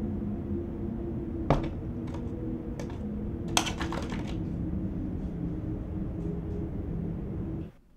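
A low, steady droning rumble with a few held hum tones, broken by sharp clicks: one about a second and a half in, two more after it, and a quick run of clicks around three and a half to four seconds. The drone cuts off abruptly just before the end.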